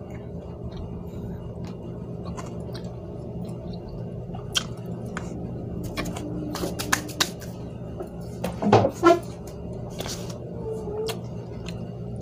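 Eating sounds from a cup of instant noodles: chewing, with scattered light clicks of a fork and spoon against the cup and a louder short burst about nine seconds in, over a steady low hum.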